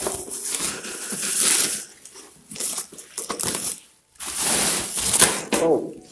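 Black bubble-wrap packaging crinkling and rustling as it is pulled open by hand and a cardboard box is drawn out, in several bursts with a short pause about four seconds in.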